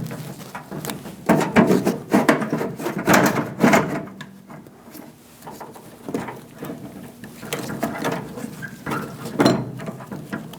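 Plastic push rivets being pressed into a van's door trim panel: irregular clicks and knocks in clusters, with a quieter stretch in the middle.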